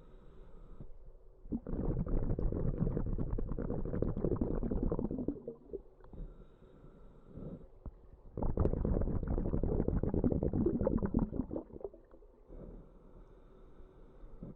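A scuba diver breathing underwater through a regulator. A quieter inhale with a faint steady hiss is followed, about a second and a half in, by a long burst of bubbling exhaled bubbles. The cycle repeats, with the second burst of bubbles starting about eight seconds in.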